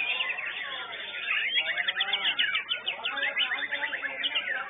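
White-rumped shama (murai batu) singing a fast, varied run of chattering phrases and quickly repeated notes.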